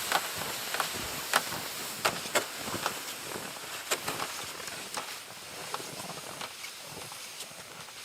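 Footsteps crunching in cold, dry snow, about one step every half second to second, growing fainter as they move away.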